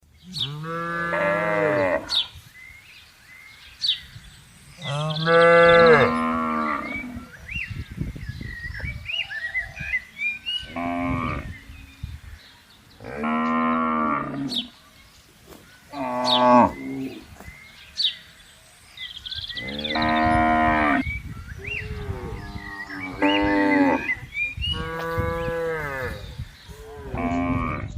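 Cattle mooing over and over: about ten long, drawn-out calls one after another, each lasting one to two seconds, with short quieter gaps between them.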